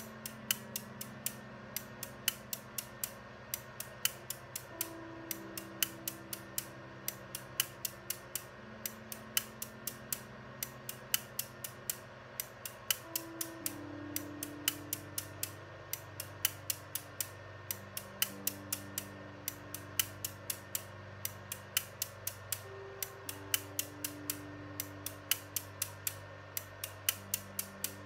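Relays in a relay-built 16-bit ALU clicking as they switch while it computes, a few sharp clicks a second at an uneven rhythm. Low steady tones underneath change pitch every few seconds.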